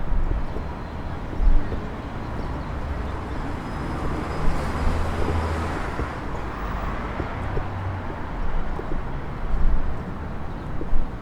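City street traffic: a steady low rumble of vehicles, with one passing car or bus growing louder and fading away in the middle, and a few short knocks.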